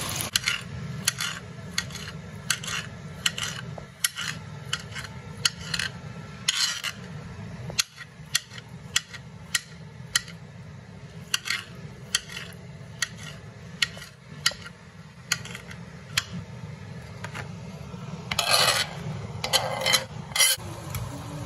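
Kitchen knife chopping tomatoes on a glass cutting board: irregular sharp taps of the blade on the glass, about one or two a second. Near the end comes a few longer strokes of the blade scraping the diced tomato across the board. A low steady hum sits underneath.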